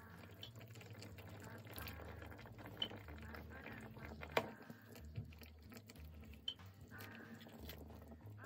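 Metal tongs and a ladle clinking sharply against a soup pot a few times, loudest about four seconds in, with faint sloshing of broth as the beef and vegetables are moved.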